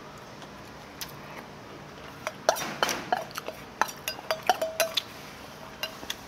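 Tableware clinking at a meal: spoon and chopsticks knocking against rice bowls and dishes. A quick run of sharp clinks, a few ringing briefly, starts about two seconds in and lasts a few seconds, with a couple more taps near the end.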